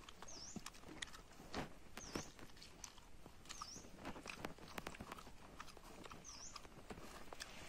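A hand kneading rice and curry on a dried palm-leaf sheath: irregular soft clicks, squishes and rustles. A short, high, dipping chirp repeats about every second and a half behind it.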